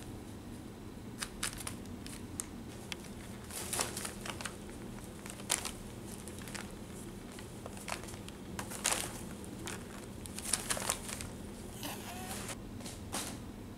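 Kittens pouncing and walking on crumpled kraft packing paper and plastic air-pillow packing, the paper and plastic crinkling and rustling in irregular bursts.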